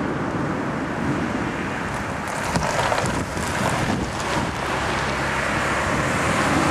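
Wind blowing across the camera microphone, a steady rumbling noise with uneven gusts.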